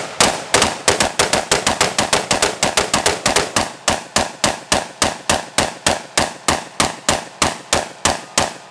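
Rapid semi-automatic fire from short-barrelled AR-15 pistols with barrels of about four inches: a steady string of sharp, very loud shots, about five a second, with no stoppage, the guns running through the magazine after being oiled.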